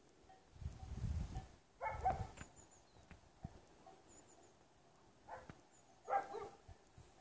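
A dog barking a few times, with the loudest barks about two seconds in and near the end. A low rumble on the microphone comes about a second in.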